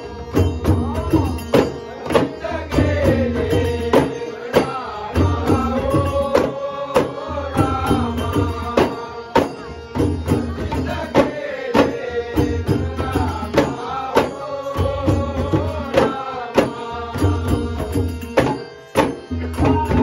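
A group of ghumat clay-pot drums beaten together in a steady beat, with an elderly man singing a traditional Shimga folk song over them in a powerful voice.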